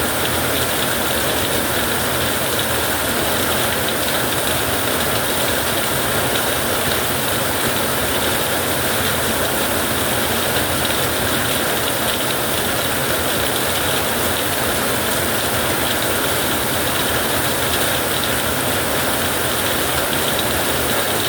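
Heavy rain falling as a steady, even hiss, with no thunderclap in it.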